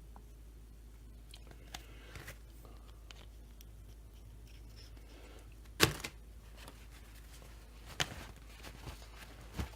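Parts and tools being handled on a workbench during chainsaw crankcase assembly: a few light clicks and knocks, the sharpest about six seconds in and another about two seconds later.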